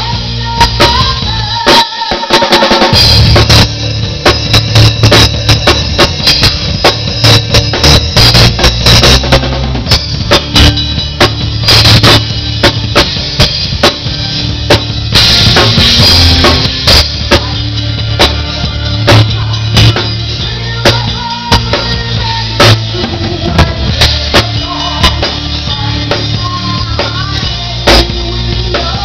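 Live band music, a rock drum kit played hard and close up: kick drum, snare hits and cymbal crashes over the rest of the band. The low end drops out briefly about two seconds in.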